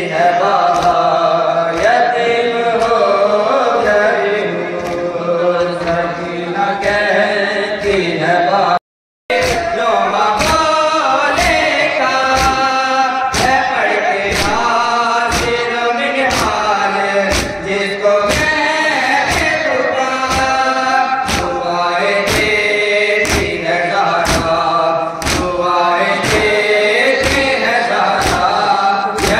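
Men chanting a noha, a mourning lament, with a steady beat of chest-beating (matam) under it, about three strikes every two seconds. The sound cuts out completely for about half a second around nine seconds in.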